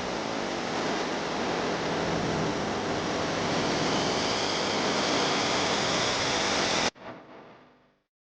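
A steady rushing noise, slowly growing a little louder, that cuts off abruptly about seven seconds in, leaving a short fading tail and then silence.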